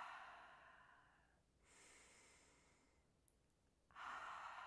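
A woman's slow grounding breaths. A breath out through the mouth fades over the first second and a half, then a softer breath in through the nose comes about two seconds in. Another breath out through the mouth starts about four seconds in.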